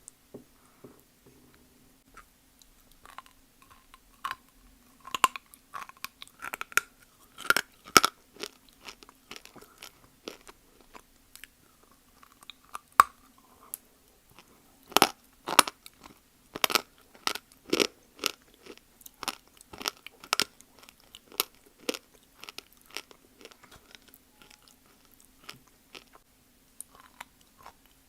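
Close-miked biting and chewing of dry Multani mitti (fuller's earth clay): irregular sharp crunches, sparse at first and thickest and loudest in the middle, then thinning out.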